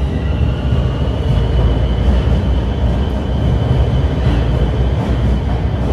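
TTC Bombardier Toronto Rocket subway train pulling out of the station: a loud steady rumble of wheels and cars rolling past, with a thin high whine held over it.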